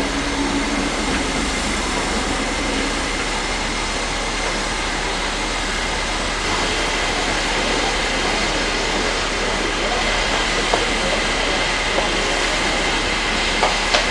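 Safety valves of LMS Stanier Black Five 4-6-0 No. 5305 blowing off: a loud, steady hiss of escaping steam with a faint high tone through it. This is the sign that the boiler has reached full working pressure while the engine stands. A few light clicks near the end.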